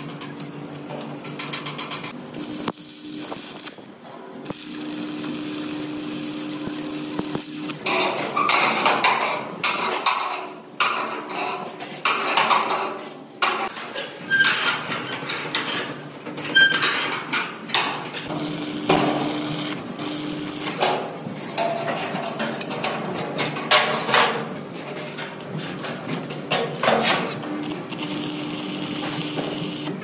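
Metalworking sounds: repeated hammer knocks on steel, irregular and dense through most of the stretch. A steady machine hum starts and stops several times.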